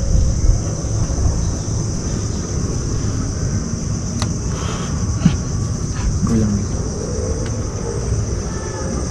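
Insects droning in a steady, high-pitched chorus over a low rumble of wind on the microphone, with a few faint clicks near the middle.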